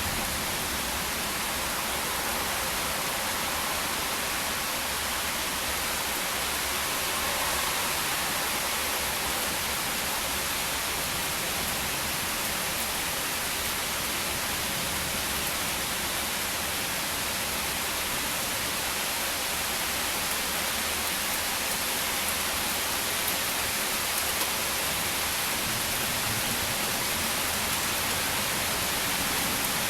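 Steady, even rain falling during a thunderstorm, with no thunder.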